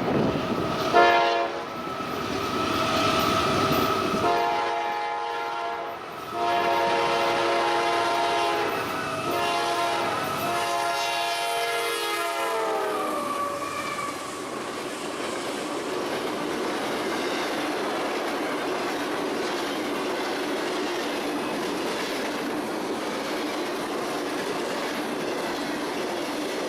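Passing train's air horn sounding four blasts, the chord dropping in pitch at the end of the last blast as it goes by, followed by the steady rumble and clatter of the train's wheels on the rails.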